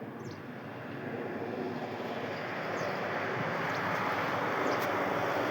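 A steady mechanical noise, growing gradually louder.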